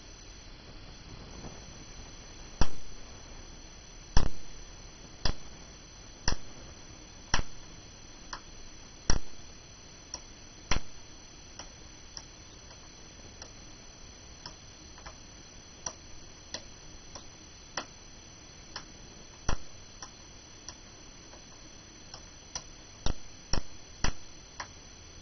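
Sharp single clicks of a switch being operated by hand, at irregular intervals: about one a second at first, fainter and sparser through the middle, then a quick run of loud clicks near the end.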